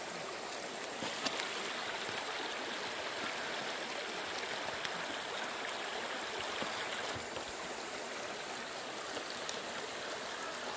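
Shallow river water flowing and rippling over rocks, a steady rush.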